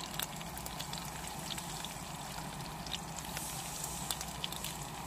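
Food chunks sizzling in a hot frying pan, a steady hiss scattered with many small crackles and pops.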